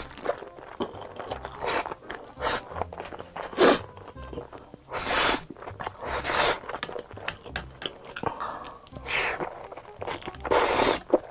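Close-miked eating: several loud bursts of slurping and biting, with chewing in between. The first bursts come as noodles are sucked in from chopsticks. Soft background music plays underneath.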